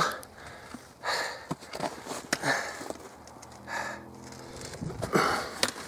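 A man breathing hard from the exertion of climbing a steep slope under a heavy pack: about four loud breaths, roughly one every second and a half, with a short voiced groan near four seconds in and a few light clicks.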